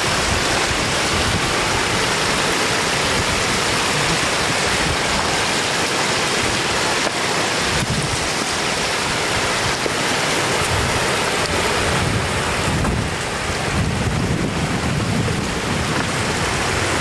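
Shallow floodwater rushing across a road and spilling over its edge: a steady rush of water.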